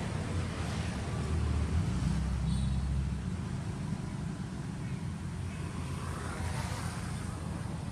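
Steady low rumble of a motor vehicle engine, strongest about one to three seconds in.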